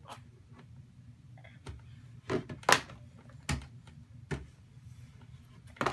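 About six short knocks and thuds of children's board books hitting one another, the floor and a wooden bookshelf as a toddler pulls them down and steps on them, irregularly spaced, the loudest a little under three seconds in.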